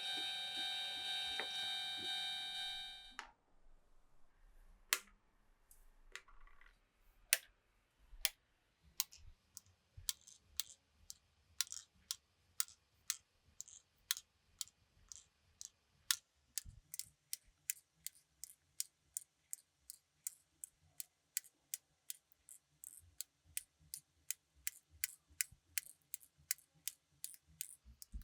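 Glass marbles clicking along a wooden marble run: a few scattered clicks at first, then a fast, fairly even run of about two to three clicks a second. A steady ringing tone stops about three seconds in, and a faint low hum joins about halfway through.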